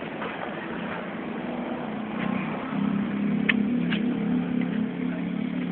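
An engine running, a steady hum that grows louder about two seconds in, with two short clicks near the middle.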